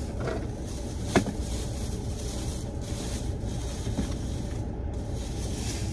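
Steady low rumble and hiss inside a car cabin, with one sharp click about a second in.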